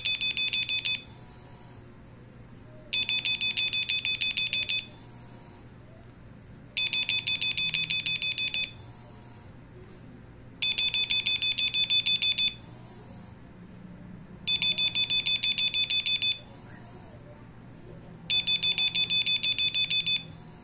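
Nokia 2112 mobile phone's alarm going off: bursts of rapid, high-pitched electronic beeps, each burst about two seconds long, repeating about every four seconds, six times.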